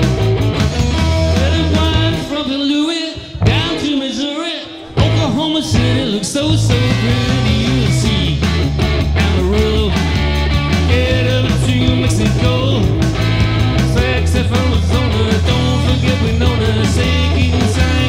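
Live rock music led by an electric guitar over a heavy, steady bass line. About two seconds in, the bass drops out for roughly three seconds while wavering, gliding tones play, then the full groove comes back.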